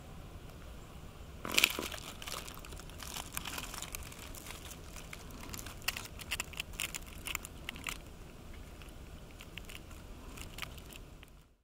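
Fallen leaf litter crackling and crunching in irregular clusters of sharp clicks, starting about a second and a half in and busiest in the middle, over a low steady background rumble. All sound cuts off just before the end.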